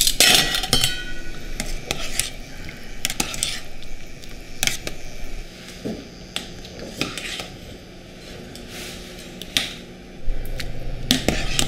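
Metal tongs and a wire skimmer clinking against a stainless steel pot and bowls while boiled beef offal is lifted out of the water. The clinks are scattered and most frequent in the first second, and a low hum starts near the end.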